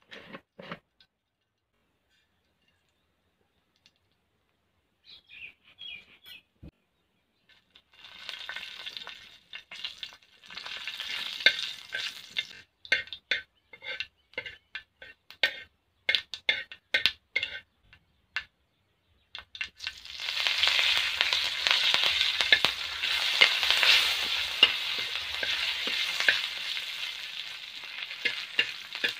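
Tempering in hot oil in an iron kadai: crackling and spitting in scattered bursts as dry red chillies and seeds fry. About two-thirds of the way in it turns to a loud, steady sizzle with green chillies and curry leaves in the oil, stirred with a metal spatula.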